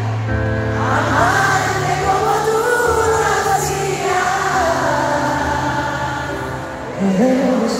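Live piano ballad: keyboard accompaniment with several voices singing, as of a crowd singing along.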